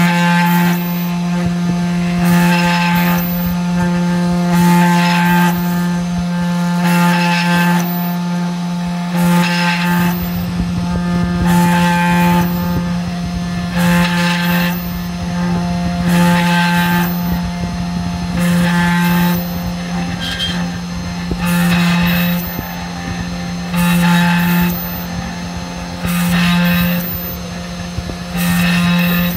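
Mini CNC engraving machine's spindle motor running with a steady hum, with a surge of drilling noise about every two seconds as the small bit plunges into the copper-clad PCB for each hole.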